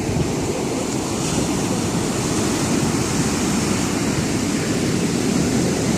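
Ocean surf breaking and washing ashore: a steady, rushing noise with a low rumble, with wind buffeting the microphone.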